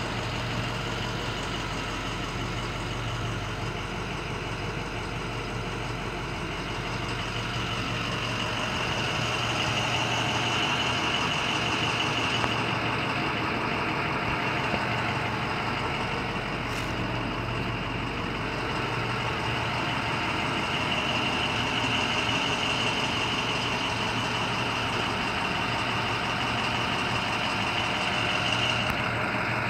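International MXT's 6.0-litre VT365 turbo-diesel V8 idling steadily.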